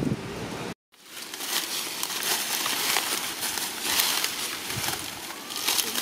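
Wind rumbling on the microphone, cut off by a moment of silence under a second in, then dry leaf litter rustling and crackling irregularly under a monkey's feet.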